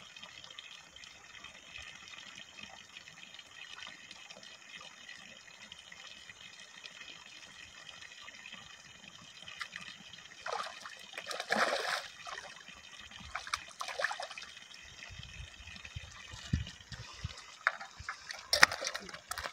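Water splashing and sloshing at a pond's surface in irregular bursts about halfway through, then a few sharp splashes near the end, over a faint steady hiss.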